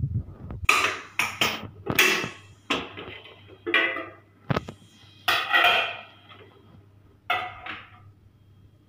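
Cookware being handled: a metal lid clattering as it is lifted off a clay cooking pot and the pot knocking as it is set on a gas stove. A run of separate knocks and scrapes, about nine, ending a second before the end.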